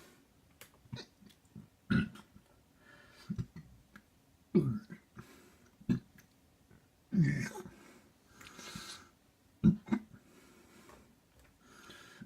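A person burping repeatedly: four loud burps roughly every two and a half seconds, with quieter breathy sounds between them.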